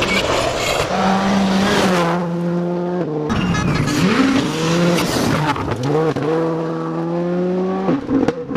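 Rally car engines at high revs passing on a gravel stage. Each engine note is held, then drops sharply as the gears change, over a hiss of tyres and gravel. There is a brief break about three seconds in, after which another car's engine rises and holds its note before dropping again near the end.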